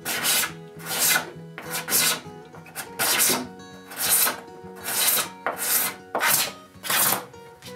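Steel card scraper scraping cured epoxy inlay flush with a wooden slab, in short rasping strokes about one a second, over quiet background music.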